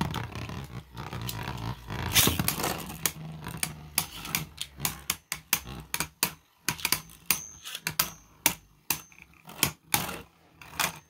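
Beyblade Burst spinning tops whirring on the plastic stadium floor. From about four seconds in they clack against each other again and again, with sharp clicks several times a second.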